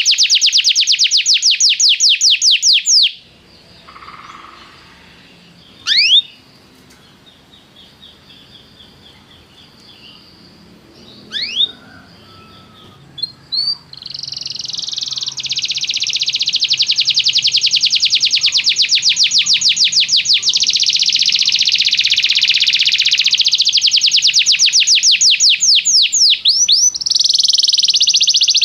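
Domestic canary singing: a loud, fast trill of rapidly repeated sweeping notes that breaks off about three seconds in. A quieter stretch follows with a few sharp single chirps, then a long, loud rolling trill starts about halfway through.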